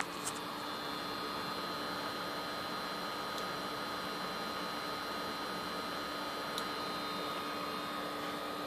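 Steady electrical hum with a faint high whine over a hiss, broken by a few faint clicks.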